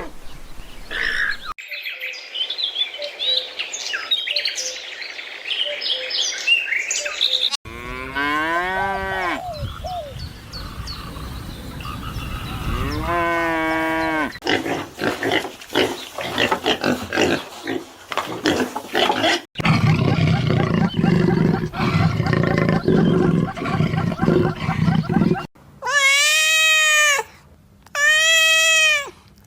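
A run of calls from different animals, cut abruptly one after another. Near the end a cat meows twice, each meow about a second long.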